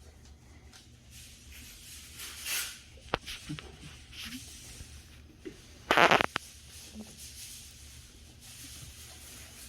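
A person chewing and breathing through a mouthful of butter, with soft mouth noises and one short, loud burst of breath about six seconds in.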